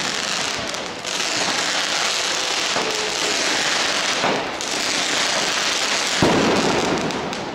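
Fireworks going off in the street: a continuous dense hissing and crackling that changes character about a second in and again around four seconds. A louder burst comes just after six seconds, then it dies down near the end.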